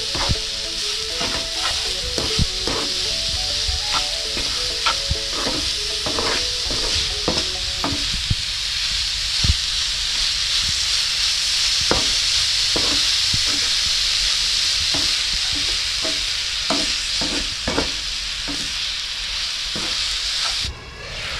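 Grated carrots and sugar sizzling in a non-stick frying pan while a wooden spatula stirs them, with frequent scrapes and taps of the spatula against the pan. The sizzle cuts off suddenly near the end.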